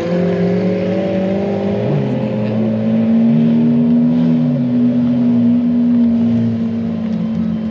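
Several Lamborghini engines running together. One holds a steady high drone while another revs up and down a few times in the middle.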